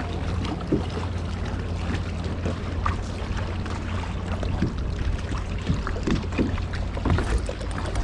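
Water slapping and lapping against the hull of a small fishing boat, with wind on the microphone and a low steady hum that weakens about halfway through.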